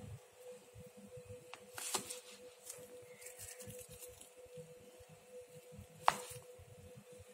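Faint handling sounds of a plastic-wrapped cake: a brief crinkle of cling film about two seconds in and one sharp click about six seconds in, over a steady faint hum.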